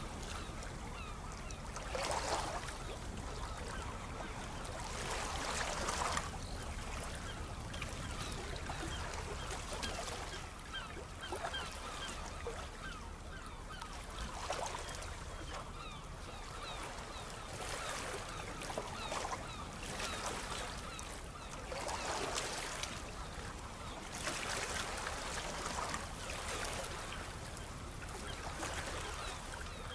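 Sea waves washing ashore, the surf swelling and ebbing every few seconds, with a scatter of short high sounds over the wash.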